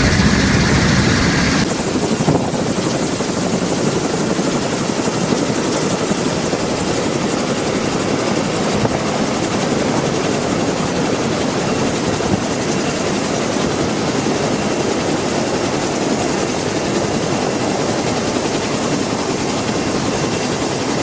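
Black Hawk helicopter running overhead, a loud, steady wash of rotor and turbine noise. The sound changes abruptly a couple of seconds in, then holds steady.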